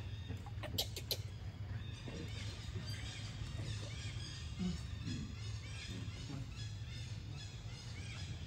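Birds chirping in quick repeated short calls over a steady low background rumble, with two sharp clicks about a second in.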